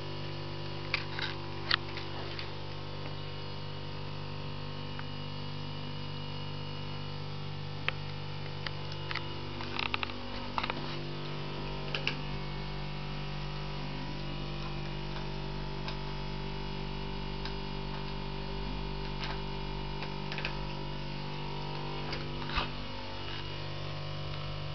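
Steady electrical mains hum, with a few faint short clicks and ticks scattered through it.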